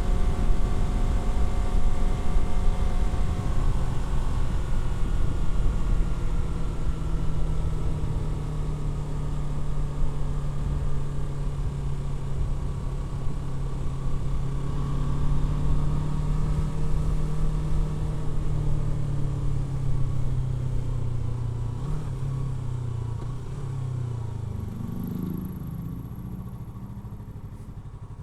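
Yamaha R3's 321 cc parallel-twin engine holding steady cruising revs, then falling in pitch and dropping toward idle near the end as the bike slows.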